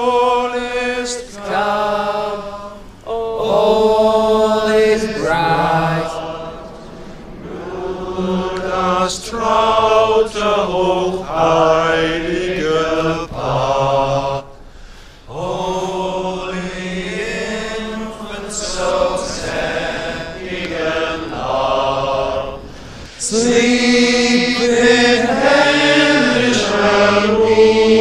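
Men's voices singing a slow Christmas carol, with long held notes, growing fuller and louder about 23 seconds in.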